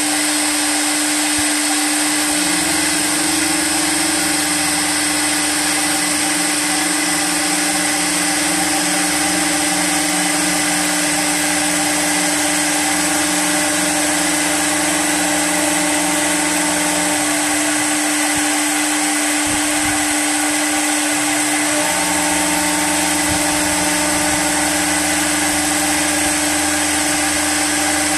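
CNC wood lathe at work turning a wooden leg, its motors running with a steady whine and hum. The lower hum drops out for a few seconds past the middle, then comes back.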